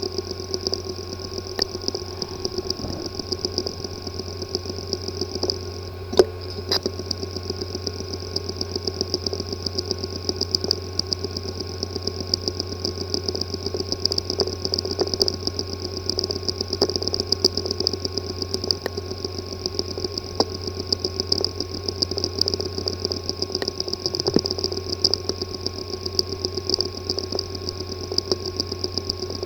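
Hard drive with a physically damaged disk assembly, running with a steady whir and hum overlaid by rapid, irregular ticking, and a few louder clicks about six seconds in. This is the sound of physical damage inside the sealed drive.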